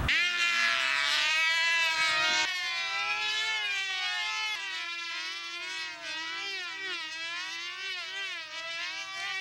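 Small high-revving two-stroke model engines of control-line combat airplanes buzzing in flight, their pitch wavering up and down steadily as the planes circle on their lines. A second engine joins in a few seconds in.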